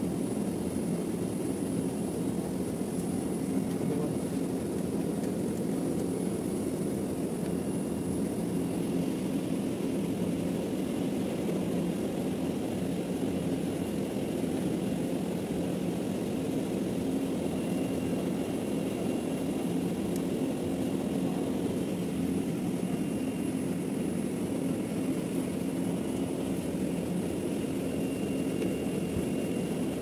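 Air conditioning unit running: a steady mechanical hum and whir that holds at an even level without stopping.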